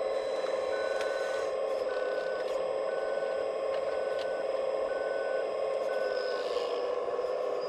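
Steady electric whine of RC hydraulic machinery, the pump motor of the scale excavator and crushing plant. Over it, a reversing beeper sounds six evenly spaced beeps about once a second, then stops.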